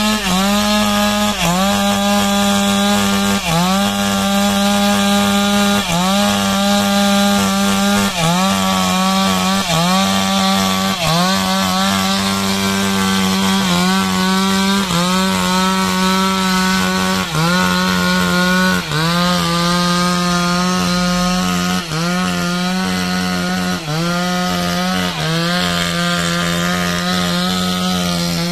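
Petrol two-stroke chainsaw running at full throttle as it cuts into a rubber tree trunk. Its engine note dips briefly and recovers every second or two as the chain bites into the wood.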